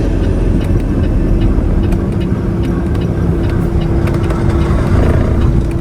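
Semi truck's diesel engine running steadily with a low rumble; a steady hum joins about two seconds in.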